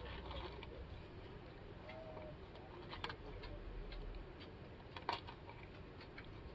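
Faint scattered clicks and taps over low room noise, the sharpest about three seconds and five seconds in, with a brief faint tone about two seconds in.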